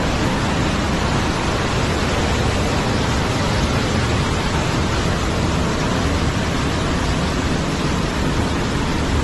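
Steady, loud rushing noise: an even hiss that never breaks or changes.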